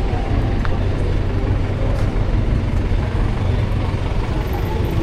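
Busy street ambience dominated by a steady low rumble of motor traffic.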